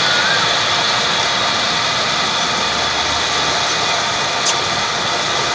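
Tubewell running: water gushes steadily out of the outlet pipe into a concrete tank, over a steady mechanical drone from the pump. A brief click sounds about four and a half seconds in.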